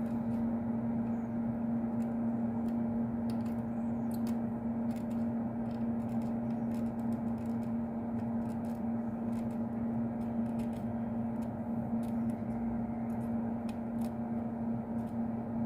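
Fume extractor fan running with a steady hum, over faint, irregular light clicks from soldering work on the connector pins.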